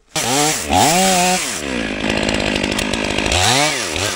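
Gas chainsaw starting suddenly and revving up and down twice, then running at full throttle as it cuts the felling notch into the tree trunk. Its pitch swells up and back down once near the end.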